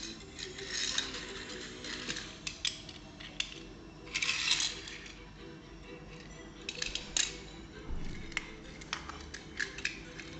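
Handling of Hot Wheels packaging and die-cast toy cars: rustling and crinkling with many sharp clicks and clinks, over faint background music.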